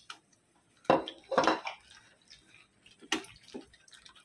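Water poured from a bowl onto dried Bombay duck fish in a ceramic dish, splashing for under a second, then hands rinsing the fish, with a sharp knock about three seconds in and a few clinks of the dishes. This is the first rinse that washes grit out of the dried fish.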